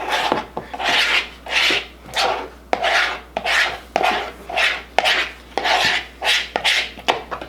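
Slime mixture being stirred in a bowl, the utensil scraping the bowl in a steady rhythm of rasping strokes, a little under two a second.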